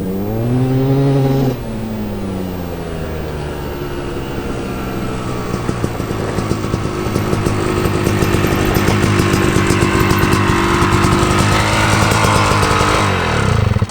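2005 Yamaha YZ250 single-cylinder two-stroke engine with an FMF pipe, ridden on a test ride: a quick rev near the start, then a steady run with the revs building and the note getting louder, stopping abruptly near the end.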